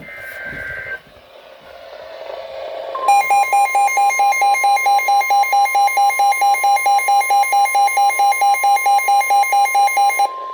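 NOAA Weather Radio alert for a severe thunderstorm warning. A short two-tone data burst (the SAME header) and a moment of radio hiss are followed by the steady 1050 Hz warning alarm tone. Over it a receiver's alarm beeps rapidly, about four beeps a second, and stops shortly before the end while the steady tone continues.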